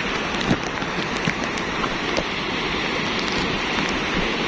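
Volcanic lahar, a flood of muddy water and debris, rushing steadily down its river channel with a rumble. Occasional sharp ticks sound through it.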